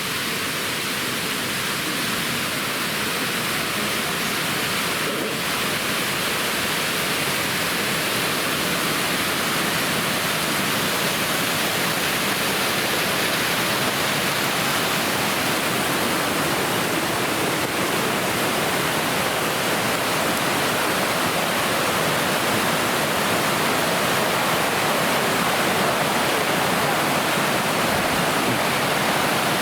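Waterfall rushing: a steady roar of falling water that grows slightly louder over the stretch.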